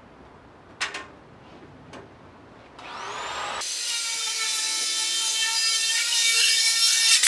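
A handheld power tool spins up with a rising whine and then cuts thin aluminium sheet, a loud high screech with steady tones that stops abruptly near the end. Before it, the loose sheet knocks lightly twice.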